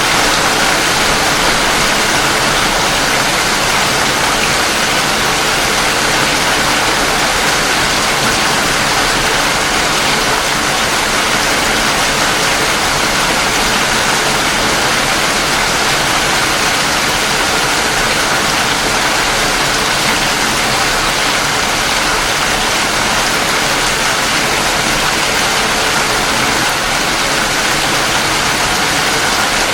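Steady heavy rain, a dense unbroken hiss of falling water.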